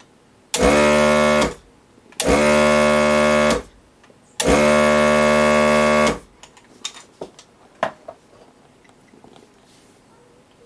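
ZD-915 desoldering gun's vacuum pump run in three steady buzzing bursts of one to two seconds each, followed by a few light clicks.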